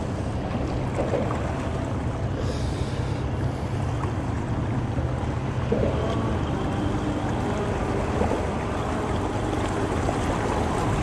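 Boat motor running steadily at low speed, a constant low hum under wind and water noise.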